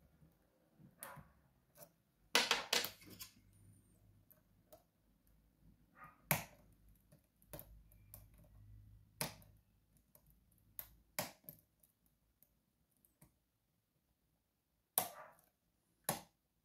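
Lock pick and tension wrench working the sliders of an Evva 3KS disc-slider lock: scattered sharp metallic clicks and taps, several seconds apart, with a cluster of clicks about two to three seconds in.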